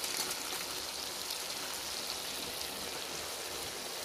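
Diced potatoes, carrots, peas, onion and tomato frying in oil in a kadai, a steady sizzle with faint crackles.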